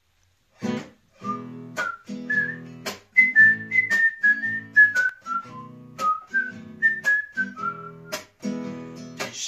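A nylon-string classical guitar strummed in a steady rhythm, with a man whistling a stepwise melody over it. Both start about half a second in.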